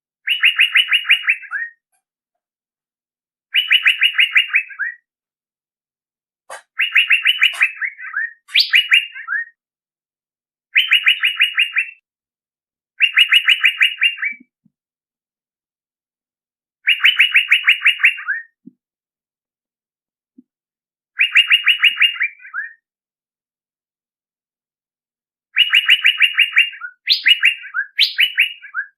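Male Asian fairy-bluebird (cucak biru) lure call: short bursts of rapid, evenly repeated notes, each phrase about a second and a half long, repeated about nine times with pauses between, several phrases ending in quick upward-swooping notes.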